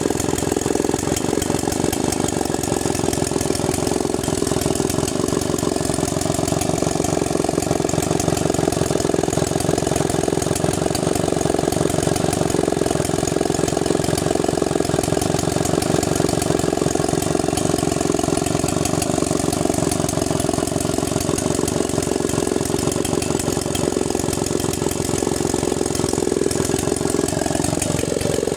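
Stihl 090G chainsaw, a large single-cylinder two-stroke engine, running steadily at idle.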